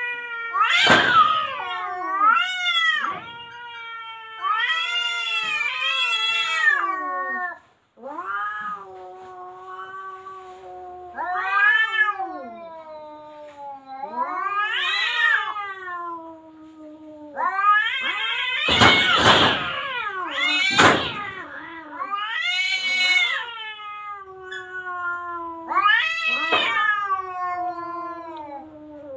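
Two cats in an aggressive standoff, threatening each other with long yowls that waver up and down in pitch. A few short hissing spits come about a second in and twice about two-thirds through, and these are the loudest moments.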